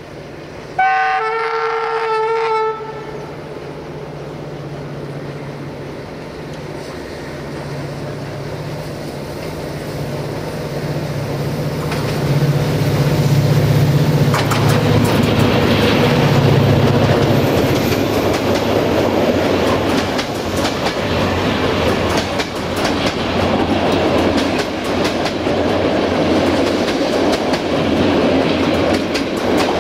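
A GM-engined EGM Class 65 diesel-electric locomotive sounds its horn about a second in: a two-part blast, one note and then a chord, about two seconds long. Its diesel engine rumble then grows louder as it approaches and passes, and the passenger coaches follow with rhythmic clickety-clack of wheels over the rail joints.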